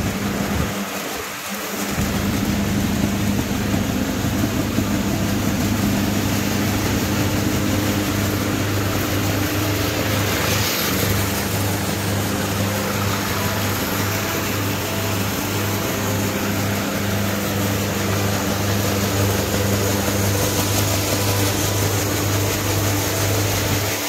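Tractor engine running steadily, driving a Krishi Darshan soybean grader whose shaking sieves rattle the beans through. The engine hum and the hiss of grain and sieves are even throughout.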